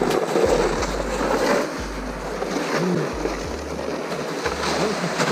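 Plastic sled dragged over the packed, crusted snow of a road, a steady rough scraping.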